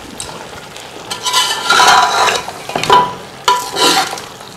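Spoon stirring and scraping beef, onions and masala frying in a pot, several strokes from about a second in, some with a faint ringing note from the pot, over a steady sizzle. This is the bhuna stage, browning the meat in its masala before the stock goes in.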